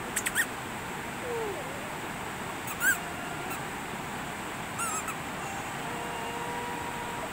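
Steady rush of a fast, rocky river, with a few short high chirps at the start and about three and five seconds in.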